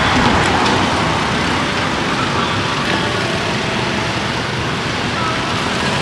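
Steady road traffic noise: a continuous hum of passing vehicles.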